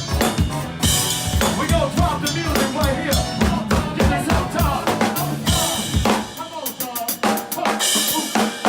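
Live rock band playing, led by a drum kit: a steady bass-drum beat with snare and cymbal hits under a bending melodic line. About six seconds in the low end drops away, leaving sharper drum and cymbal hits.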